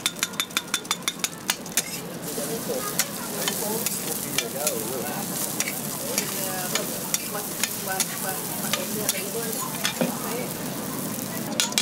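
Ramly burger patties and buns frying on a flat-top griddle, sizzling steadily. Over the first couple of seconds a metal spatula taps the griddle fast and evenly, about six times a second; after that come scattered single clicks of the spatula and wire masher on the hot plate.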